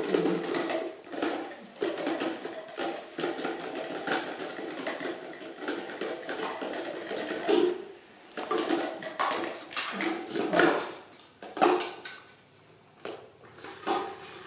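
Plastic toys being handled and knocked together on a tiled floor: irregular light clacks and rattles, with a few sharper knocks in the second half.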